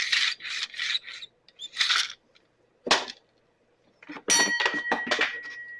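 Tools and metal parts being handled during small-engine disassembly: a few short scraping, rustling handling noises, then a sharp metal clink about four seconds in that rings on for over a second.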